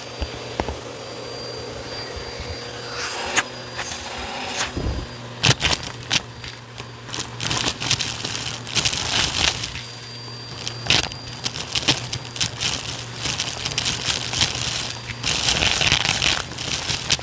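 Bissell vacuum running with its hose tool sucking grit, glitter and debris out of a shag rug. A steady motor hum sits under constant crackling and clicking as the bits rattle up the hose, thickest near the end.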